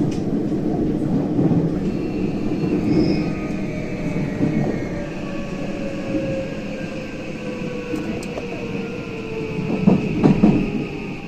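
JR West 323 series train's Mitsubishi full-SiC VVVF inverter and traction motors whining over the wheel and rail rumble. The whine falls slowly in pitch as the train slows toward a station stop. A few knocks come about ten seconds in.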